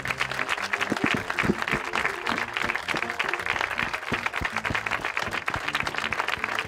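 A crowd applauding steadily, with instrumental music playing underneath.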